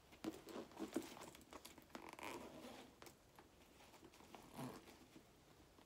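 Faint rustling and light clicks of a Saffiano leather tote being handled, its straps, hardware and zippered compartments worked open.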